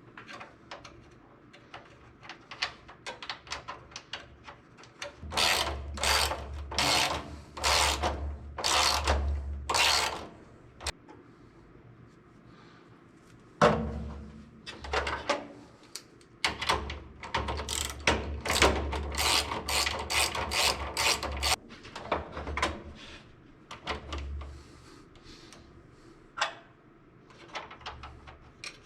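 Ratcheting hand tool clicking in quick repeated strokes while fasteners in an electrical panel are worked, in two main runs with scattered clicks between.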